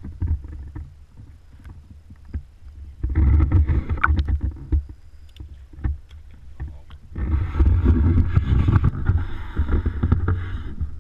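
River water sloshing and lapping against an action camera's waterproof housing sitting at the waterline. It comes in two long rough surges of low rumble, the first about three seconds in and the second from about seven seconds to near the end, with small splashes and clicks between them.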